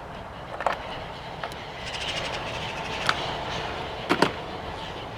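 Hand tools working a battery-tray bolt: a ratchet clicking in a quick run of even ticks, with a few sharp metallic knocks and clicks.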